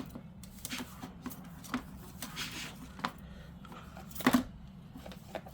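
Scattered light clicks and taps from handling small objects on a desk, with one louder knock about four seconds in.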